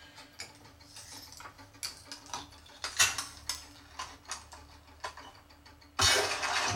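Movie sound effects played through a soundbar and subwoofer and picked up by a camera microphone: a run of irregular mechanical clicks and ratcheting, then a sudden loud rush of noise about six seconds in.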